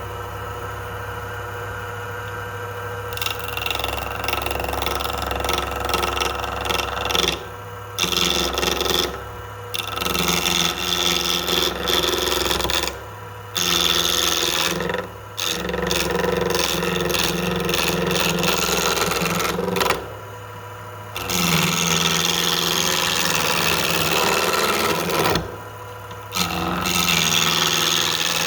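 An electric shop machine runs with a steady hum. About three seconds in, loud rasping contact noise starts as work is pressed against it, continuing in long passes broken by several brief pauses.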